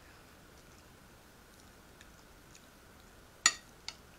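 A metal serving spoon clinks sharply against a plate about three and a half seconds in, followed by a fainter clink, as it digs into fried tilapia. Quiet chewing between.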